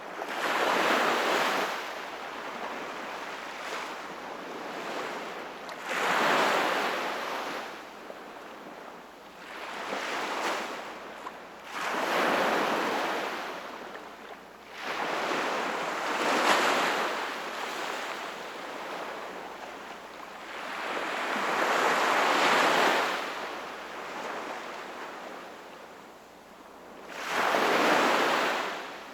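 Sea waves washing onto the shore in repeated surges, each swelling and falling away, about seven in all.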